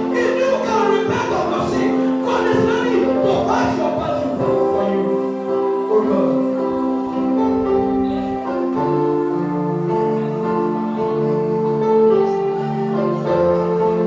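Gospel worship music: sustained keyboard chords that shift every few seconds, with voices singing over them in the first few seconds.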